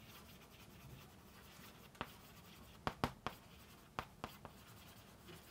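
Chalk writing on a chalkboard: faint scratching, with several sharp taps of the chalk on the board between about two and four seconds in.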